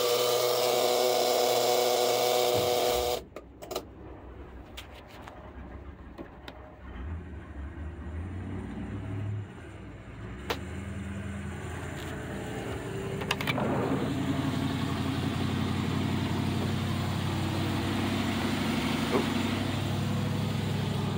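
A loud steady whir that cuts off abruptly about three seconds in, then quieter rumbling and a few clicks. From about halfway a steady low engine hum: the boat's Chevy V8 gasoline inboard engines running.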